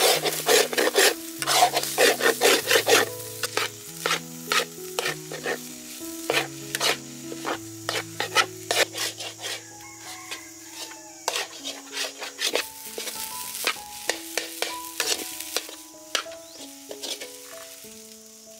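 Metal ladle scraping and clinking against a wok as fried rice is stirred and tossed, with the rice sizzling in the pan. The strokes come fast and loud for the first few seconds, then slower and lighter.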